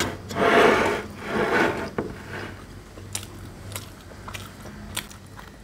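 Crispy deep-fried puri being broken apart by hand: two loud crackling, rasping crunches in the first two seconds, then scattered small clicks.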